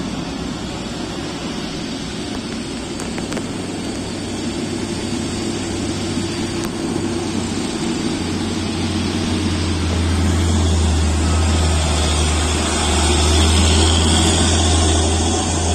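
Hino diesel truck's engine pulling up a steep hairpin under load, getting louder as the truck comes close, with a deep steady drone from about halfway through.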